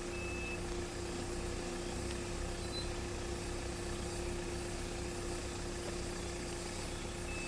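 Off-road vehicle running with a steady hum and low rumble. A short, high electronic warning beep sounds once at the start and again near the end, at about the pace of a parking-sensor or reversing warning.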